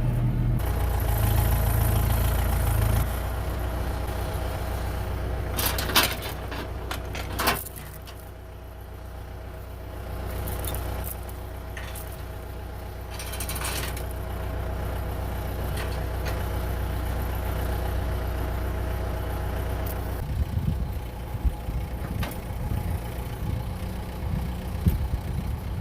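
Tractor engine idling steadily, with two sharp clacks about six and seven and a half seconds in. From about twenty seconds a rough, uneven low rumble joins the engine.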